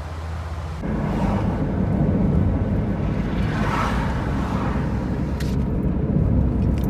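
Road and tyre noise with engine rumble inside a Toyota Prius cabin while driving, a steady low rumble that gets louder less than a second in.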